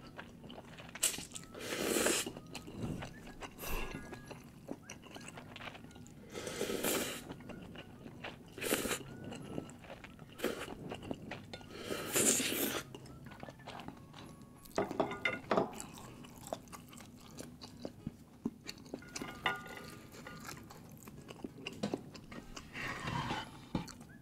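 A person eating spicy laksa instant noodles close to the microphone: a long noisy slurp every few seconds, with wet chewing and mouth clicks in between.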